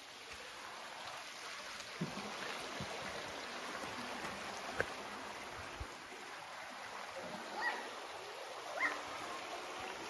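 Steady rushing of the Mangapohue Stream flowing fast, with a few faint knocks and two short calls near the end.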